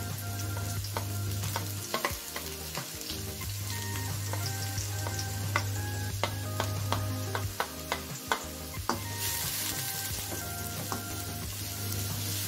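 Sliced shallots and garlic sizzling as they fry in a little oil in a wok, with a spatula knocking and scraping against the pan as they are pushed in and stirred. The sizzle grows louder about nine seconds in.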